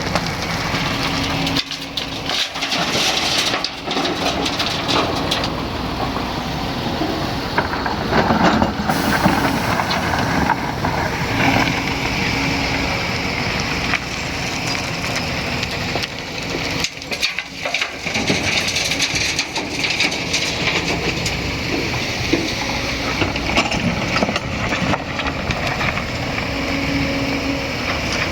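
Excavator at work: its diesel engine runs steadily under load, with frequent crunching and knocking of soil and rock as the bucket digs and loads the truck.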